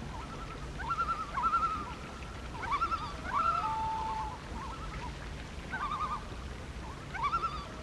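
Common loon giving its tremolo: rapid wavering calls, repeated in several bursts, with one short level note about three and a half seconds in.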